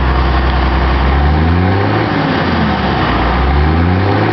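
M35A2 deuce-and-a-half's multifuel inline-six diesel, just started and still warming up, running at a fast idle and revved up and back down twice. The second rev peaks near the end.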